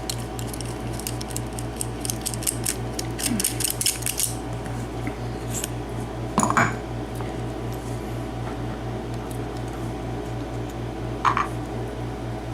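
Small metal clicks and clinks of a six-pin Lockwood padlock being taken apart with small tools. There is a quick run of light clicks in the first few seconds, then a louder clink near the middle and another near the end.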